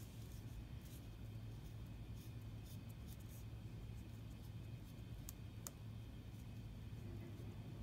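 Faint scratching of a wooden pencil pressing deep lines into craft foam, with two small sharp clicks about two-thirds of the way through, over a steady low hum.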